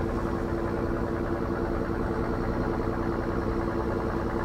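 Boat engine running steadily at a constant speed: an even low hum with a steady droning tone that does not change.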